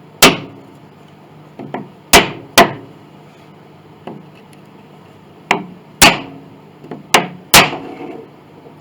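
Hammer tapping at a glued piece on an antique grand piano's soundboard to crack the glue joint loose. There are six sharp strikes, mostly in pairs, with a few lighter taps between.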